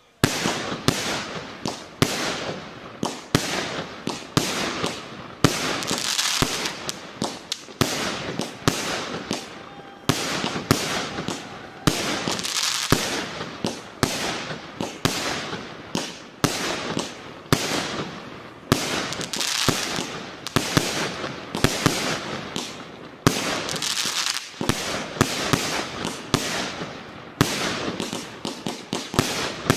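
A 36-shot, 1-inch firework cake firing in rapid succession, about one shot a second, each shell launching and bursting with a sharp bang, with a hiss between shots.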